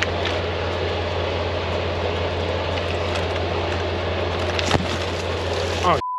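Semi-truck's diesel engine idling with a steady low hum while heater hoses are handled, with one sharp knock about three-quarters of the way through. A censor beep starts at the very end.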